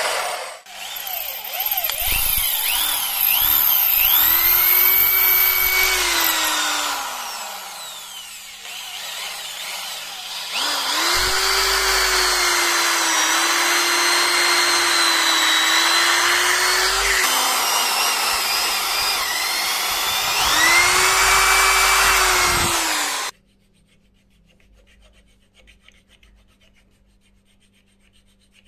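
Electric power drill boring into a wooden board, run in three bursts that each spin up to a steady whine. After it stops suddenly, a hand file rubs faintly on wood.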